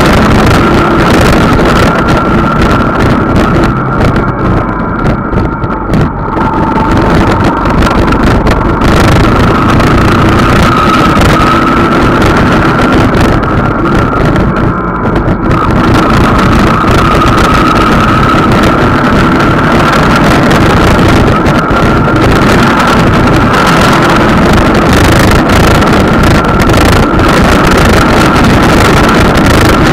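Riding noise from a motorcycle-mounted camera: loud wind buffeting on the microphone over the running engine and tyres. It eases briefly twice as the bike slows.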